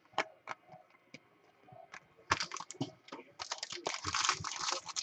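Foil wrapper of a 2013 Bowman Chrome jumbo card pack being handled and torn open: a few light clicks, then dense crackling and crinkling from about two seconds in.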